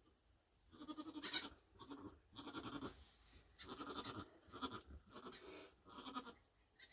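Nigerian Dwarf goats bleating: a run of six or seven short bleats in quick succession, roughly one a second.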